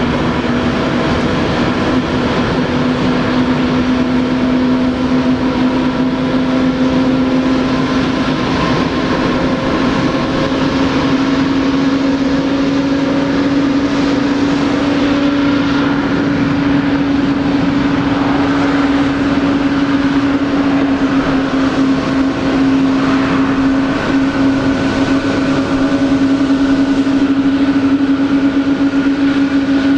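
Jet airliner engines running at an airport: a loud, steady rush with a low whine that rises slightly in pitch about ten seconds in.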